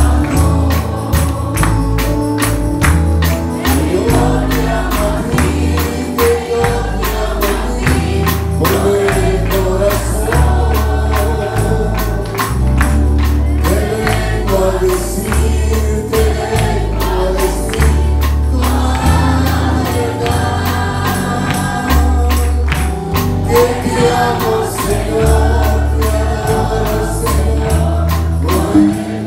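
Live church worship band playing gospel music: a man and two women sing into microphones over keyboard, guitar and a drum kit, with a steady beat.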